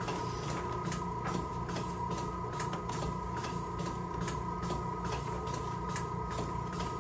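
Steady electrical hum with a constant high-pitched tone and a rapid ticking, about three ticks a second, from the electrical stimulation equipment.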